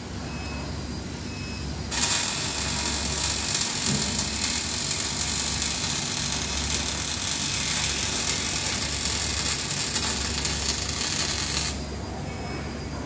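OTC robot's welding arc joining a steel post to its base plate. The arc strikes about two seconds in, runs as a steady crackling hiss for about ten seconds, then cuts off suddenly. A low steady hum runs underneath.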